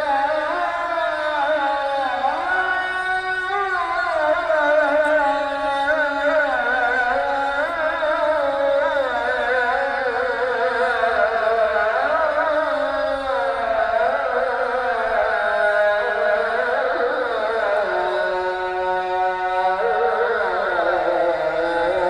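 A voice chanting a Ramadan supplication (dua) in a slow, heavily ornamented melody, with no breaks.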